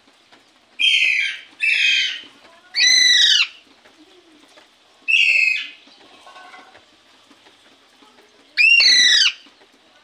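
Alexandrine parakeet giving five loud calls, each about half a second long; the third and the last slide down in pitch.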